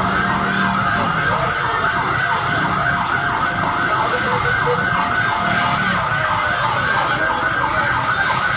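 Emergency vehicle siren on a fast yelp, sweeping up and down about three times a second. A steady tone sits beneath it until about six seconds in.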